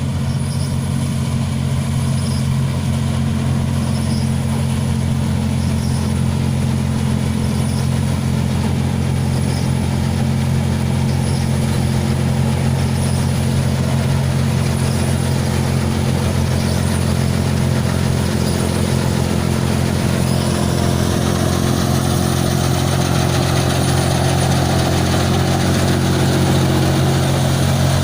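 John Deere 5045D tractor's diesel engine running steadily at a constant speed, growing a little louder and rougher in the last third.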